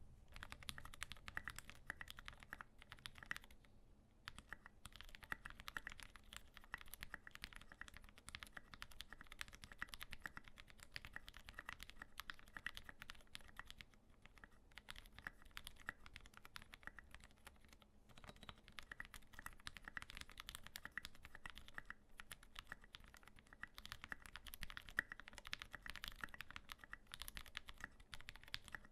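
Continuous typing on a custom mechanical keyboard with a brass plate, lubed retooled Cherry MX Black linear switches and SA-profile keycaps: a rapid stream of keystroke clacks. The typing thins briefly about 4, 14 and 18 seconds in.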